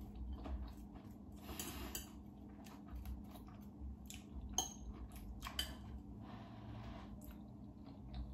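Metal fork clinking and scraping on a plate as salad is picked up and eaten, with chewing; the clicks come irregularly, a sharper clink about four and a half seconds in, over a faint steady hum.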